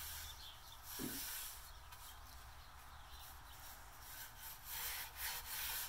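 Paintbrush strokes laying thinned white paint onto the slats of an unfinished wooden crate: a soft, repeated swish of bristles dragged over wood, louder near the end.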